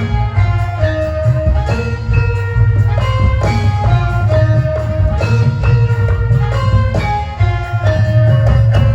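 Live music from a Javanese barongan (jaranan) accompaniment ensemble: a held, stepping melody over steady, heavy drumming.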